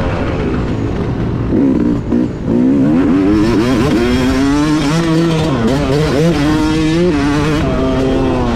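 A 2021 Yamaha YZ250 two-stroke motocross engine with a Scalvini expansion pipe, heard from on the bike, revving hard with its pitch repeatedly climbing and falling with the throttle. The throttle is chopped briefly about two seconds in before the engine picks up again.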